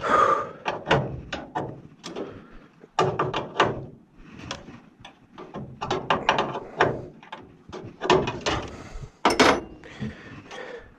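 Irregular clicks, knocks and clatter of hand tools and metal and plastic parts being handled during repair work on a furnace humidifier.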